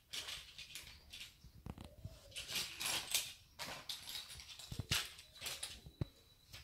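Loose plastic Lego pieces being rummaged through and picked up by hand, giving irregular rattles, rustles and clicks, with a sharper click about six seconds in.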